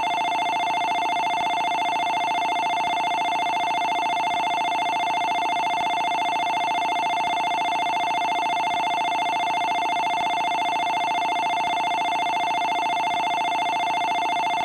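Electric bell of the kind used as a railway station departure bell, ringing continuously as a fast, even metallic trill at one steady pitch. It starts and cuts off abruptly.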